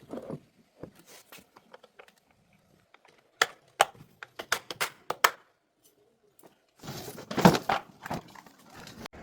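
Scattered sharp clicks and knocks, with a quick run of loud clicks about halfway through and a short, denser clatter near the end.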